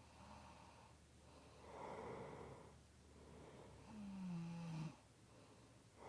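A sleeping person snoring faintly, one breathy snore about every two seconds. About four seconds in, one snore carries a low tone that falls slightly in pitch.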